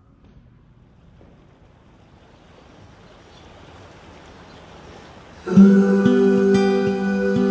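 Faint hiss, then background music with a strummed acoustic guitar starts suddenly about five and a half seconds in.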